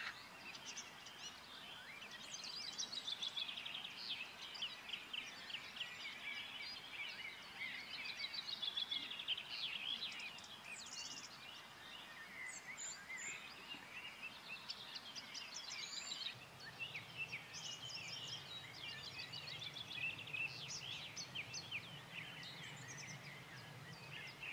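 Several songbirds singing at once, a dense run of quick overlapping chirps and trills.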